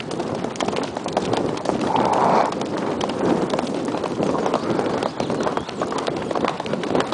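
Unshod (barefoot) horses' hooves striking a gravel track at pace: a dense, uneven run of hoofbeats from two horses.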